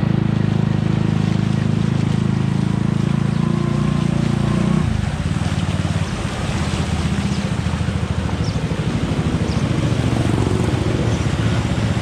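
A motor vehicle's engine running close by, steady at first. About five seconds in, its note drops and turns to a fast pulsing beat.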